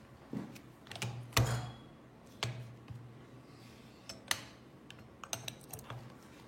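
Metal button-maker parts and dies being handled and seated: a series of separate sharp clicks and clacks, the loudest about a second and a half in, with a run of small ticks near the end.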